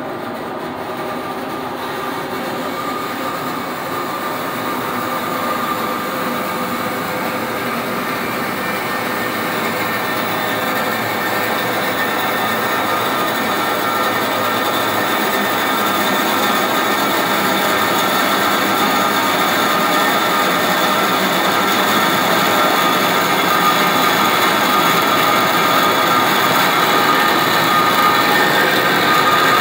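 Water forced through a DN100 (4-inch) orifice plate in a steel test pipe: a steady rushing hiss from the flow and cavitation, growing slowly louder as the pressure drop across the plate is raised and cavitation develops.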